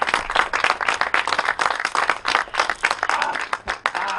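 A small group of people applauding: quick, uneven hand claps.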